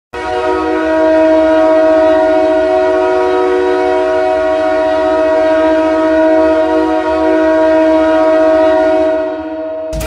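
Ice hockey goal horn sounding one long, steady blast of about ten seconds, several notes held together in a train-horn-like chord, cutting off just before the end. It signals a goal scored.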